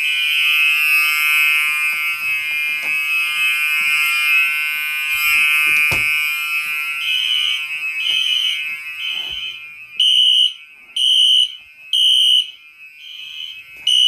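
Several fire alarm horns sounding together with a shrill, steady blare, the fire alarm system in alarm after a manual pull station has been pulled. In the second half the sound breaks into separate horn blasts about once a second.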